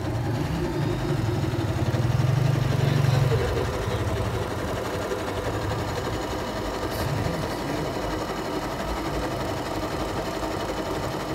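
Singer SM10 electric sewing machine stitching through cloth at its shortest stitch length, motor and needle mechanism running steadily. It is louder for the first three seconds or so, then runs on a little quieter.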